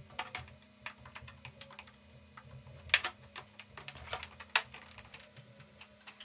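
Scattered light clicks and taps of 3D-printed plastic parts being handled and pressed together, with two sharper clicks about three seconds and four and a half seconds in.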